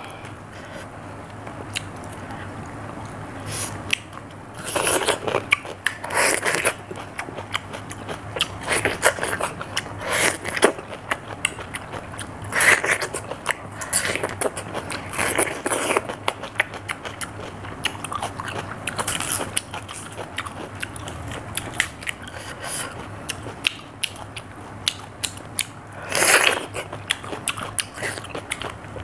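Close-up crunching and chewing of raw cucumber, with crisp bites and wet chewing in repeated bursts every second or two, the loudest near the end.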